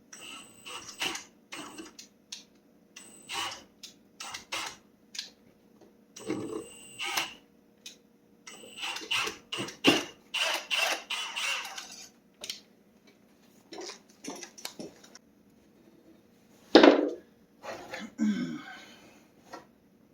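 Metal tools and engine parts clinking and clattering in short bursts while metal shavings are cleaned out of a Predator 212 engine block. There is a denser run of rattling about nine to twelve seconds in and one loud knock near the end.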